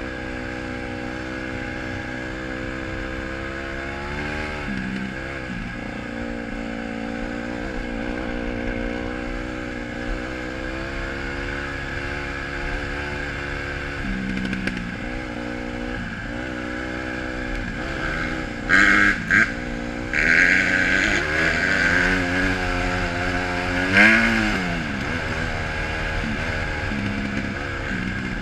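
Honda CRF150R dirt bike's single-cylinder four-stroke engine running under way, its pitch dropping and climbing again several times with throttle and gear changes. A few loud bursts of rushing noise come about two-thirds of the way in.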